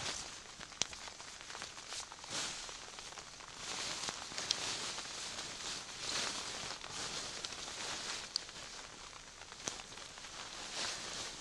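Rustling of a tarp groundsheet and a foam sit pad as a person shifts, sets the pad down and lies back on them, coming in uneven swells, with a few sharp clicks.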